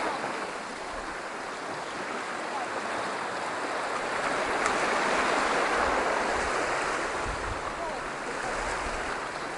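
Surf washing onto a beach, a steady rush of waves that swells louder about halfway through, with faint murmur of people's voices.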